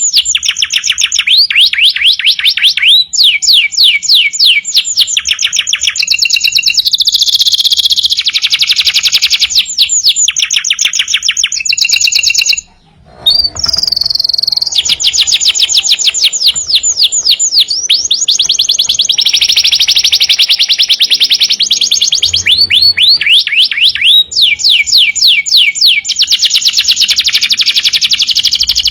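Domestic canary singing continuously and loudly: long runs of very fast repeated trill notes and rolling phrases that change every second or two. There is a brief break about thirteen seconds in.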